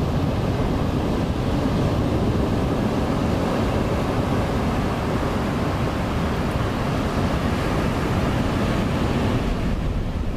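Sea surf breaking on a sandy beach: a continuous, steady rush of rough waves, with wind rumbling on the microphone.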